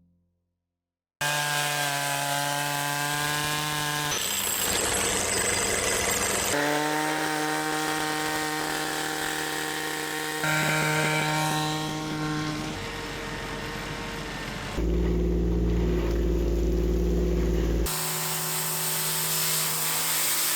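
Power tools running in a string of short cut-together clips: saws and other motors, each a steady whine that switches abruptly to a different one every few seconds, starting after about a second of silence.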